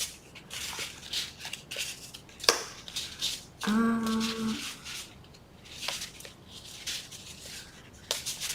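Paper and cardstock being handled on a desk: irregular short rustles, slides and light taps. About four seconds in comes a brief hummed note lasting under a second.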